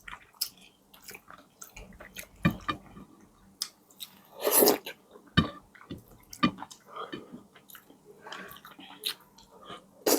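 Close-up chewing and wet mouth noises, with irregular lip smacks and clicks, from someone eating steamed fish and its sides. A louder wet smack comes about four and a half seconds in.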